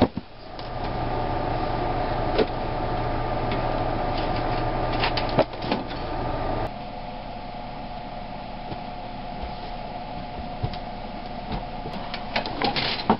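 Cardboard boxes being handled and set down, giving a few sharp knocks and thumps over a steady background hum. The hum drops to a quieter level about seven seconds in.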